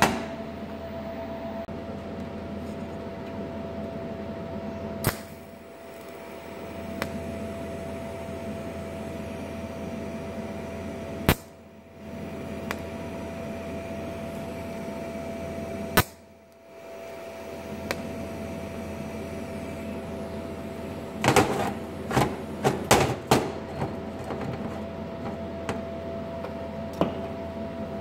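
DC TIG welding tacks onto a steel hinge: a steady electrical hum from the welding setup, broken by sharp clicks, three single ones several seconds apart and a quick cluster about three-quarters through.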